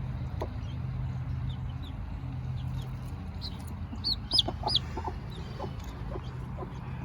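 Mother hen clucking in short low notes, with a few loud high peeps from a baby chick about four seconds in, over a steady low hum.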